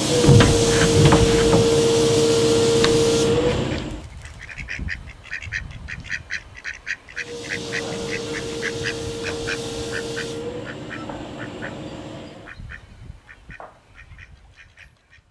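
Ducks quacking in rapid runs of short calls. They are heard over a steady hissing machine hum that stops about four seconds in and returns for a few seconds in the middle.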